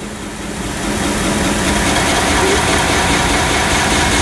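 1x30 belt grinder running, its 550-watt servo sewing-machine motor driving the abrasive belt over the wheels. It gets louder over about the first second as it is sped up, then runs steadily.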